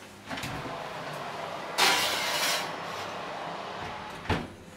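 A metal baking pan of chicken wings slid into an electric oven: a scraping rush as it goes onto the rack, loudest for about a second near the middle, then the oven door shutting with a knock near the end.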